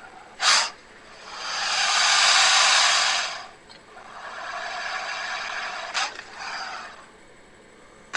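Crocodile hissing: a short sharp hiss about half a second in, then a long hiss that swells and fades over about two seconds, followed by a weaker, longer hiss with a brief sharp puff near the end.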